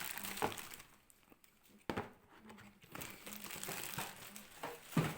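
Plastic packaging crinkling, with several short clicks and knocks from handling, the sharpest near the end.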